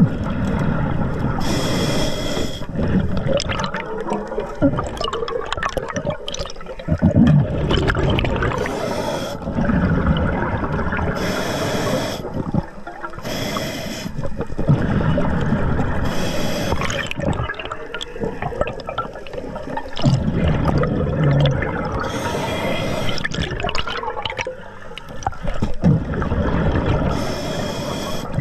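Atomic scuba regulator breathing underwater: a short hissing inhale every few seconds, with exhaled bubbles rumbling and gurgling between them.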